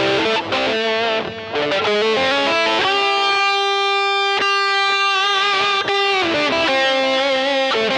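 Electric guitar played through a Zoom G1XN multi-effects pedal on a distorted lead tone. Quick runs of single notes, with one note held for about three seconds in the middle before the runs resume.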